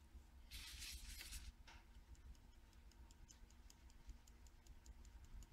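Near silence with a faint rustle, then faint light ticking as fine glitter is shaken from a small plastic pot onto glue on a paper card.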